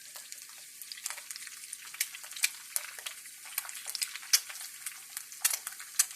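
Eggs frying in hot oil in a pan, sizzling with irregular sharp pops and crackles that grow busier about two seconds in.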